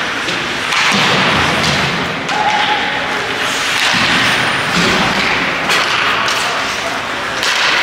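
Ice hockey play in an arena: skates scraping the ice in surges, with repeated thuds and clacks of sticks, puck and boards.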